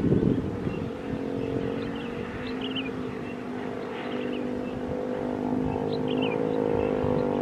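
Boeing 737-500 jet engines running with a steady droning hum that edges up slightly in pitch and loudness in the second half. Short high chirps come through over it.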